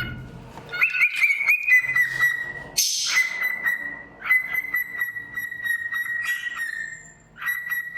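Cockatiel whistling: a few short rising notes, then long, steady held whistles, broken by a brief rustle about three seconds in.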